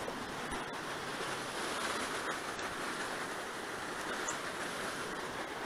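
Steady rushing of a swollen, muddy river flowing below: an even noise with no distinct events.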